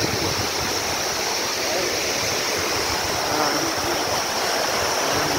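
Waterfall and its stream rushing steadily over rocks.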